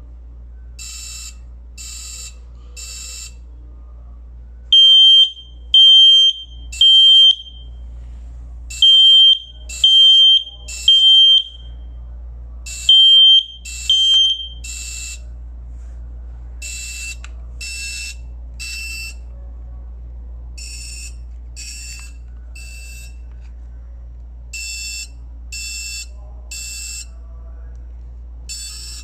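Smoke alarm under test sounding the three-beep alarm pattern: loud, high-pitched beeps about a second apart in groups of three, starting about five seconds in and stopping after about ten seconds, the last group cut short at two. A fainter, slightly lower-pitched alarm keeps beeping in threes throughout, over a steady low hum.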